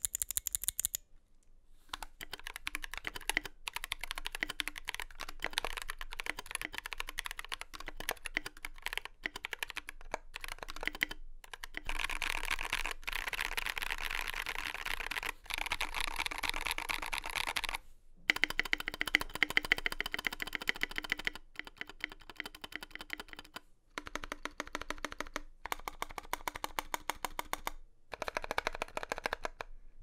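Typing on an Epomaker GK68XS aluminium-case 65% keyboard with Akko CS Blue tactile switches and Akko ASA keycaps, assembled with no case foam: fast runs of keystrokes, paused briefly a few times. Under the clicks there is a hollow hum and a clanging of the metal parts, the sign of a bare, undampened case, which the builder calls simply awful.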